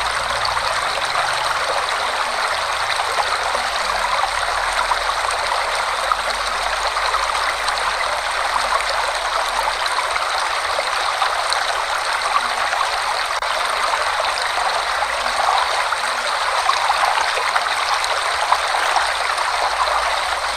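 Forest waterfall and its stream, water rushing and splashing steadily.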